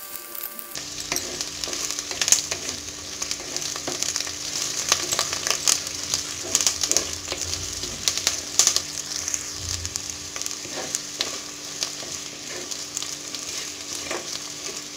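Shallots, garlic, dried red chillies and curry leaves sizzling in hot sesame oil in a clay pot, with frequent clicks and scrapes of a wooden spatula stirring against the pot. This is the sautéing stage, with the onions and garlic frying until soft. The sizzle starts about a second in.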